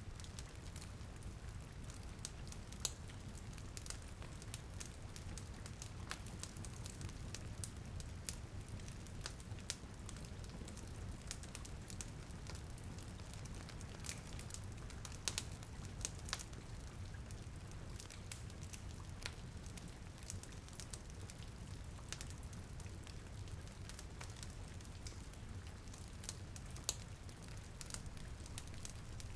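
Rain and fireplace ambience: a steady low rumble and hiss of rain under irregular sharp pops and crackles of burning wood, a few louder snaps standing out.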